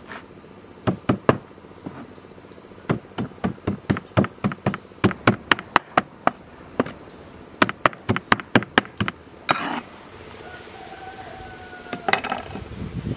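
Cleaver chopping fresh herbs on a wooden cutting board: a long run of sharp knocks of the blade on the wood, a few a second, that stops about nine seconds in.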